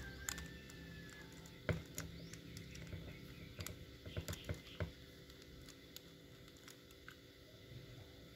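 Small sharp clicks and taps of a carburetor's metal parts and a pilot jet being handled, the loudest about two seconds in and a quick run of them around four to five seconds in.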